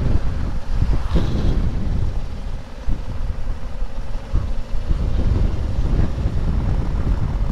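Wind buffeting the microphone over the low rumble of a Honda Africa Twin motorcycle riding along the road.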